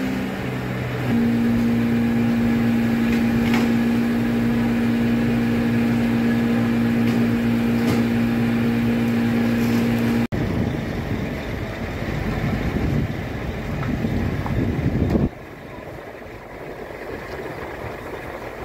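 Truck-mounted crane's engine and hydraulic drive running with a steady hum, which stops suddenly about ten seconds in. A rougher low engine rumble follows, then drops to a quieter background near the end.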